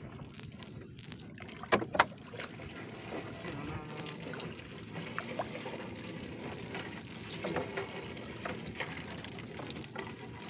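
Fishing net hauled by hand into a wooden outrigger boat over a steady wash of sea water and wind, with two sharp knocks about two seconds in.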